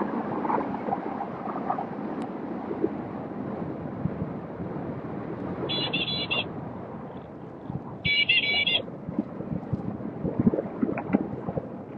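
Wind buffeting a handheld phone's microphone, with road noise while riding an electric unicycle. Two short, high electronic beeps sound about six and eight seconds in.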